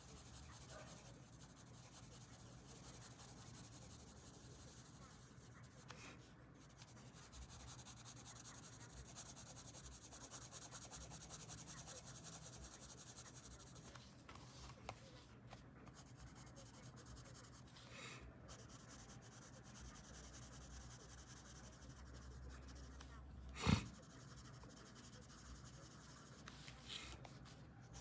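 Coloured pencil shading on paper: a faint, steady scratching of the lead stroking back and forth, a little louder through the middle stretch. One short sharp tap near the end.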